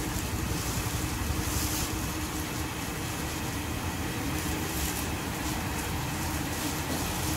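Steady hiss of oil sizzling in a large wok of frying batter, over a steady low rumble.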